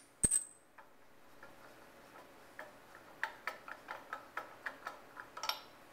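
Faint, irregular metallic clicking from hands turning an oxy-acetylene regulator's adjusting key counterclockwise to unscrew it. One sharper click comes just after the start, then small ticks come about two or three a second in the second half.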